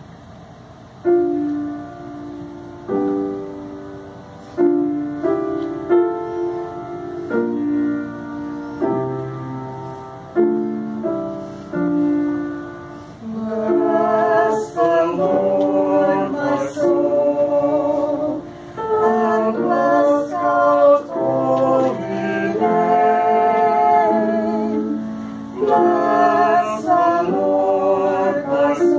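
A piano plays an introduction of separate struck chords, then a small mixed choir comes in singing a little before halfway, accompanied.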